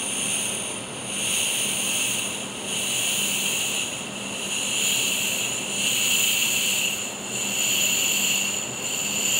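Compressed air hissing out through the pressure regulator of a Senco oil-free air compressor as its knob is turned counterclockwise to release the pressure. The hiss swells and eases about every second and a half as the knob is worked, with a thin high whistle over it.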